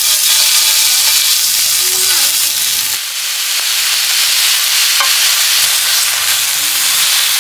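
Thin slices of wagyu beef sizzling on a hot griddle plate as tongs lay them down and lift them; a loud, steady frying hiss.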